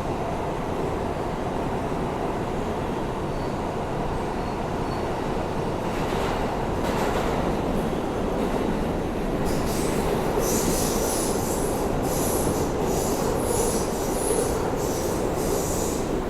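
Interior of an R160A-2 New York City subway car running between stations: steady rumble of wheels and traction motors on the track. Shrill wheel squeal sets in about ten seconds in and keeps coming and going.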